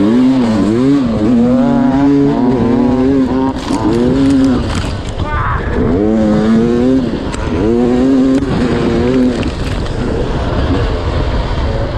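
Sherco enduro motorcycle engine revving up and down in repeated rising and falling sweeps as the rider works the throttle through the gears on a dirt track, then backing off near the end.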